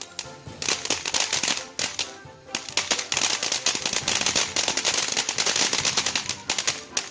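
Firework fountain's crackling effect: a dense stream of rapid crackles and pops over a hissing spray, with a short lull about two seconds in, stopping abruptly near the end. Background music plays underneath.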